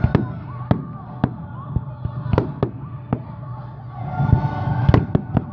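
Aerial firework shells bursting in a run of about ten sharp bangs at uneven intervals, with several in quick succession near the end.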